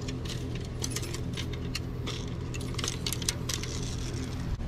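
Light metallic clicks and jingles, the spinning reels and lures on fishing rods knocking about as the rods are gathered up off the grass, over a steady low hum.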